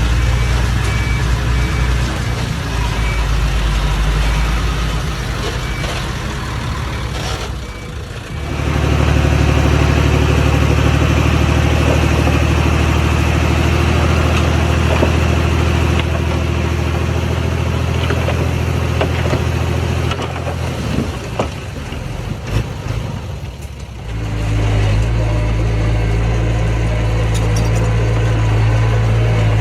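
Diesel engine of earthmoving machinery running steadily under load. The engine note changes about 8 seconds in and again around 24 seconds, as the machine's throttle or load shifts.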